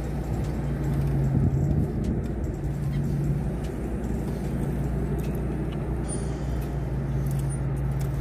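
Car engine idling, heard from inside the cabin: a steady low hum.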